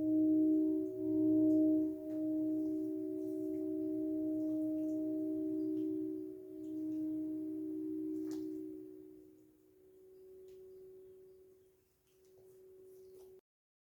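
Crystal singing bowls ringing together in a few steady, pure tones that swell and ebb slowly, then fade away. A faint tone lingers before the sound cuts off abruptly near the end.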